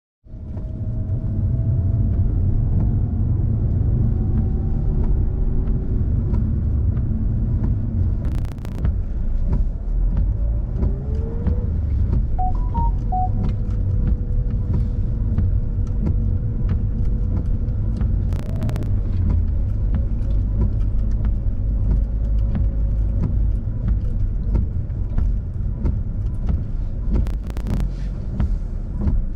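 Car driving, heard from on board: a steady low rumble of engine and road noise, with an engine tone that climbs slowly, climbs again about eleven seconds in and then holds. Three sharp knocks sound at intervals of about nine to ten seconds.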